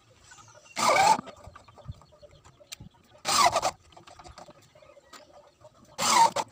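Corded electric drill driving wood screws into a speaker cabinet's cover panel, in three short bursts about two and a half seconds apart.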